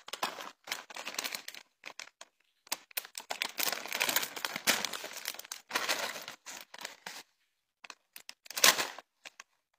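Cloth rustling and rubbing against a phone's microphone as the phone is handled close against clothing, in irregular bursts broken by sudden silent gaps.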